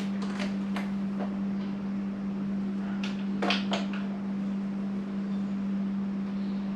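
A steady hum with a few light clicks from hand tools working the motorcycle's mirror bolts, including a short cluster of clicks about three seconds in.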